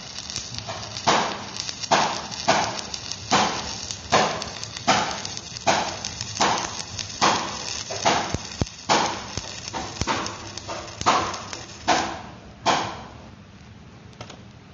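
Repeated strokes of a hand tool on the steel of the welded part, a little under one a second in a steady rhythm, each a short scraping hit; they stop near the end.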